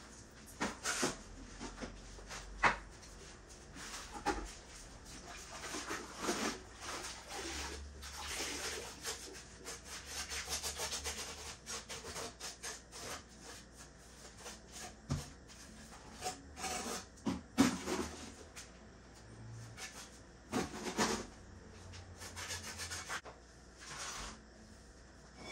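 Hand scraping and rubbing on concrete surfaces in irregular strokes, with a few sharp knocks.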